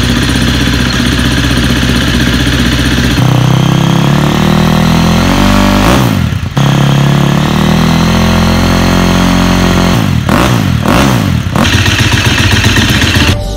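KTM 350 SX-F's single-cylinder four-stroke engine running through an Akrapovic Evolution exhaust. It holds a steady note, steps up a little about three seconds in, and is blipped several times near the end, the pitch rising and falling quickly.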